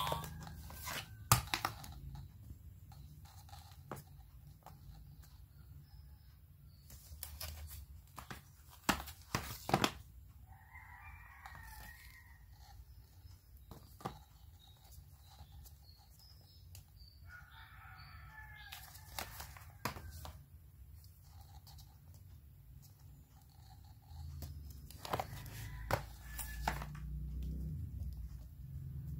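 Children's board sound books being handled: clicks, knocks and scrapes of cardboard covers and plastic button panels. Twice, a short faint electronic sound effect plays from a book's small speaker, a few seconds apart near the middle.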